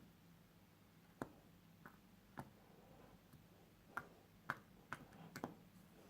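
Faint, irregular sharp clicks and small pops, about eight in all, from hands working a homemade flour-and-shampoo slime.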